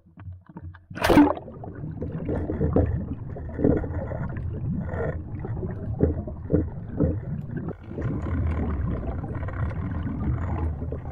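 A camera splashes into the sea about a second in. It is followed by the muffled sound of being underwater: low rumbling and gurgling of moving water with a few dull knocks.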